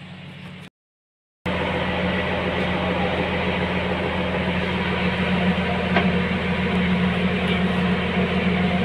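A steady mechanical hum with a low drone, like a motor or engine running, starting abruptly after a brief drop to silence about a second in.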